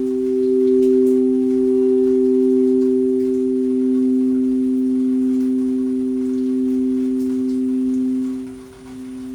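Sound bowls ringing in a held, steady drone of two tones, a lower and a higher one, with a brief dip in loudness near the end before the tone swells back.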